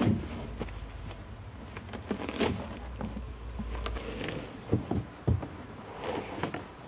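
A few dull knocks and thuds of a wooden pig feeder being shifted and set down on grass, with footsteps.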